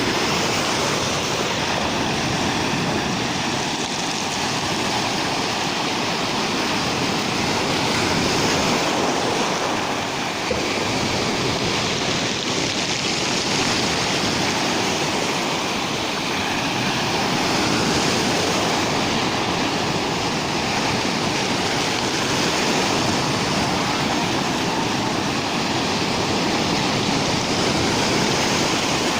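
Rough sea surf: waves breaking and washing on the shore in a steady loud rush that swells and eases every several seconds.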